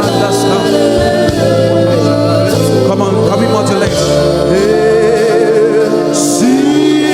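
Live gospel worship music: a singer holding and bending long notes over a sustained keyboard and bass accompaniment.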